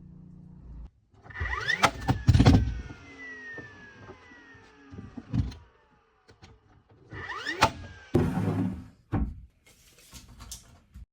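Power saw cutting framing lumber twice: each time the motor whines up to speed, cuts through the wood, then the blade winds down with a falling whine. There are a few knocks of lumber in between.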